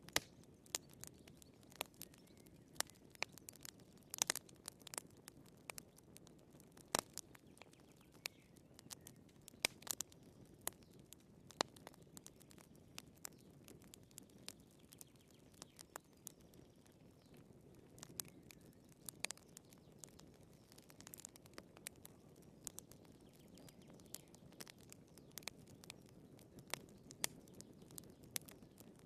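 Wood fire burning in a fireplace: irregular sharp crackles and pops, several a second at times, over a soft low hiss of flames.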